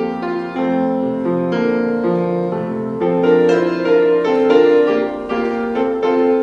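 Piano music: a melody of several notes at a time moving over a low bass line.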